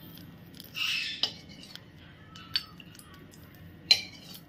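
Steel ladle scraping the inside of a steel wok and clinking against its rim and a bowl while scooping oil out. A short scrape about a second in, then a few sharp clinks, the loudest near the end.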